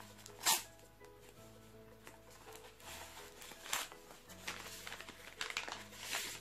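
Paper padded mailer and plastic wrapping crinkling and rustling in irregular bursts as hands open the envelope and slide the contents out, the loudest rustle about half a second in. Soft background music with held notes plays throughout.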